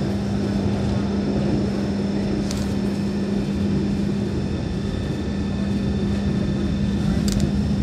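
BN coast tram running, with a steady hum over a continuous rumble, and twice a short high click.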